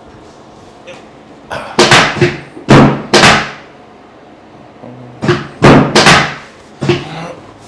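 A chiropractic hip adjustment on a treatment table: a series of loud, sharp thumps in two quick clusters, about two seconds apart.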